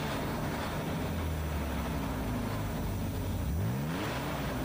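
Saab 900 convertible's V6 engine accelerating under hard throttle: its pitch climbs, holds steady for a couple of seconds, then climbs again about three and a half seconds in.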